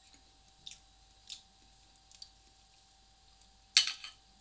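A person eating: soft chewing with a few light clicks of a fork against a plate, and one louder, short, rasping noise near the end.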